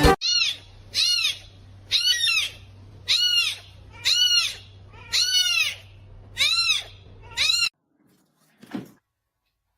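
A small animal crying eight times in a row, about once a second. Each cry is short and high, rising then falling in pitch, over a low steady hum, and the cries stop abruptly after about seven and a half seconds.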